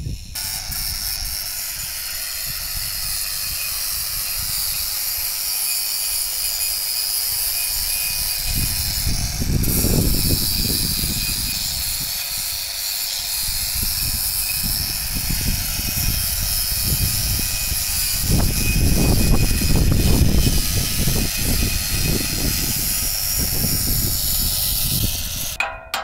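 Angle grinder running steadily against a rusty steel beach-umbrella pole, a high whine over the rasp of the disc sanding off rust to prepare the metal for paint. It swells into louder low rumbles about ten seconds in and again near twenty, and stops abruptly just before the end.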